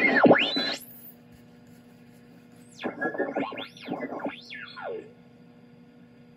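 A home-built direct-conversion receiver's audio as its oscillator is tuned across a station. A whistling beat note sweeps down to a low growl and back up, then glides up and down again several times about three to five seconds in, with a steady hum underneath.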